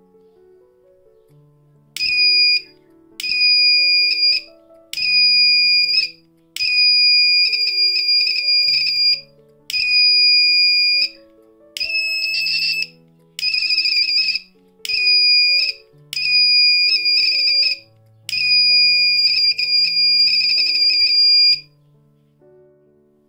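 Buzzer of a homemade flame-sensing fire alarm circuit, sounding a high, steady tone in about ten beeps of uneven length as a lighter flame is moved near it and away; each beep is the circuit detecting the flame.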